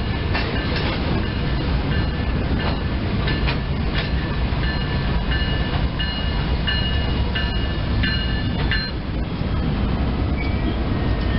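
Two diesel locomotives, an ES44AC and an SD60M, running past close by as they shove the train from behind, with the wheels clicking over the rail joints. A repeating high ringing tone sounds over it, about every two-thirds of a second, and stops about nine seconds in.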